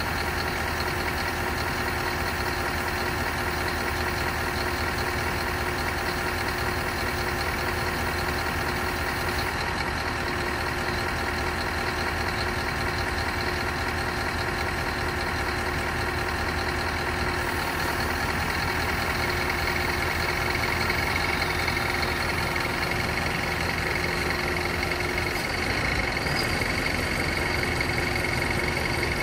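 Scania R560 V8 diesel engine running steadily at idle while it drives the hydraulics of the JOAB hooklift arm, which is moving. A steady higher whine comes in about two-thirds of the way through.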